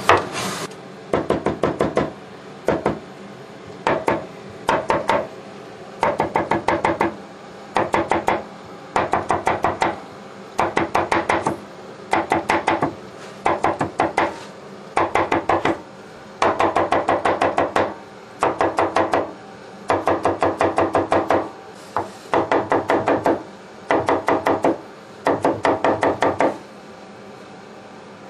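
Kitchen knife chopping cucumber into thin strips on a wooden cutting board: quick runs of knocks on the board, each about a second long, separated by short pauses.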